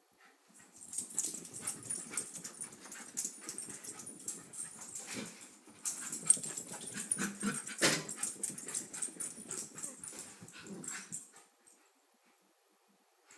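Two small dogs play-fighting, with dog noises and quick scuffling and clicking throughout, which stop shortly before the end.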